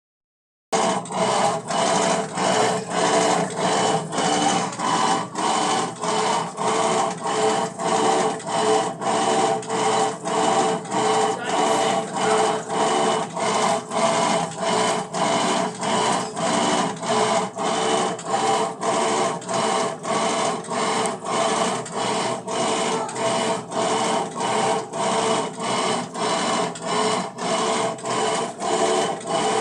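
Electrolux LTR10 washing machine washing, its motor very noisy, with a steady rhythmic pulsing that repeats a little under twice a second. The sound starts abruptly just under a second in.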